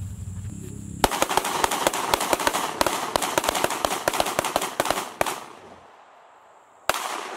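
A steady low engine rumble, then from about a second in a fast string of rifle shots, about six a second for some four seconds, then one more shot near the end.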